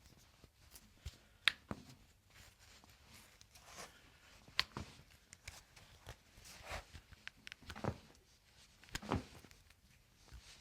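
Hands handling and manipulating feet and ankles during a chiropractic adjustment: soft rustling and shuffling with scattered sharp clicks, the loudest about a second and a half in.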